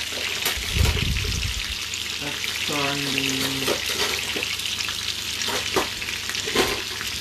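Food frying on a gas hob, a steady sizzle with a few light clinks and a low thump about a second in.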